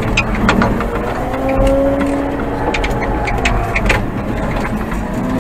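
Old Manitou telehandler's diesel engine running under work, its pitch rising and easing, with several sharp clicks and knocks from the machine.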